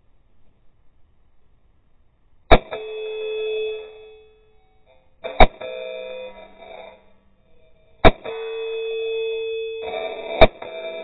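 Four pistol shots, a few seconds apart, each followed by the ringing of a struck steel target that carries on for a second or two.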